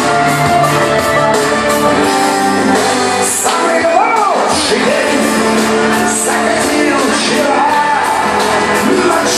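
Rock song playing loud on a karaoke system, with a steady beat and a voice singing over it.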